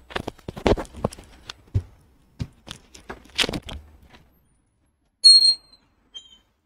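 Irregular knocks and clicks for about four seconds. Then, after a pause, a short, loud high-pitched chirp about five seconds in, followed by a fainter, lower chirp a second later.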